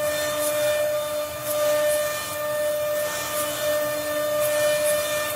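CNC wood-carving router at work: the spindle gives a steady high whine while the bit cuts wood with a hiss, sharpening into brief bursts now and then.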